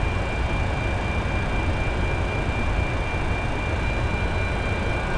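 Steady noise inside a Boeing 747's flight deck: a continuous low rumble and rushing hiss with a thin, steady high whine over it.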